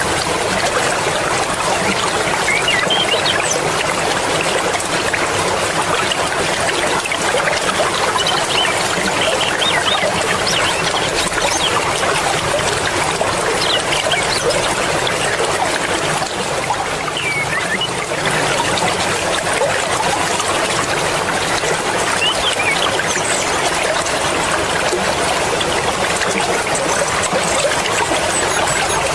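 Mountain river running fast over rocks: a steady rush of water with small splashes and gurgles.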